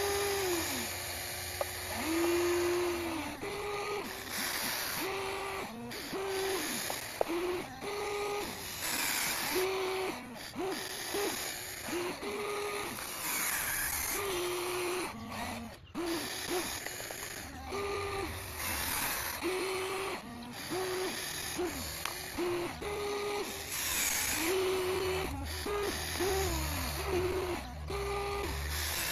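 Electric motors of a Huina 1594 RC excavator whining in many short spurts as the boom, arm, bucket and turntable move. Each spurt rises in pitch as it starts and drops as it stops.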